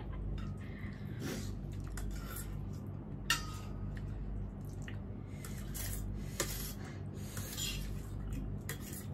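Eating utensils clinking and scraping against bowls or plates in scattered, irregular knocks, over a steady low hum.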